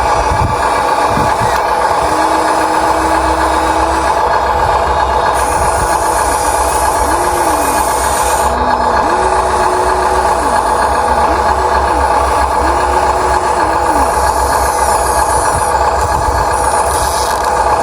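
Huina 1593 RC excavator's electric gear motors whining, each time rising in pitch, holding about a second and dropping again, several times over as the boom and arm move, over a steady mechanical drone.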